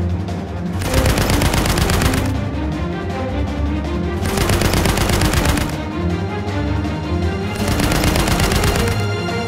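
Three bursts of rapid anti-aircraft gunfire, each about a second and a half long, over continuing background music.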